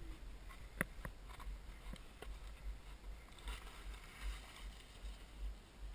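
Skis hissing through deep powder snow, with wind buffeting the microphone as a low rumble and a few light knocks.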